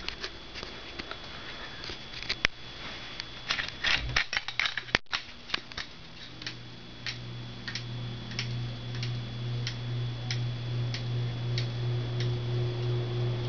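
Ceiling fan running, with scattered ticks for the first few seconds and a brief break about five seconds in. After that its motor hum builds and holds steady while a tick repeats evenly about one and a half times a second.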